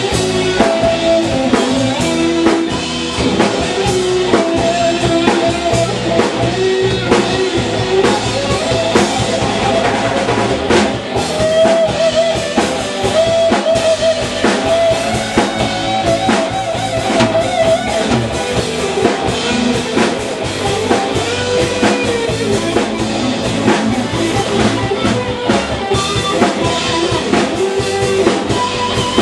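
A band playing loud music on electric guitar, electric bass and a drum kit, with regular drum strikes.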